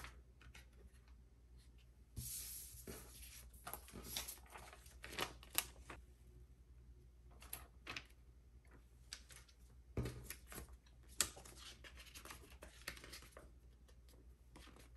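Quiet handling of boxed product packaging: paper and plastic rustling and scraping in short bouts, with a few sharp light clicks and taps.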